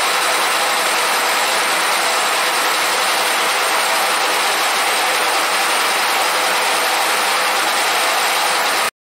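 Milling machine face-milling the deck of a 1.9 TDI aluminium cylinder head flat: a steady, even machining noise of the cutter head working across the surface, which stops abruptly near the end.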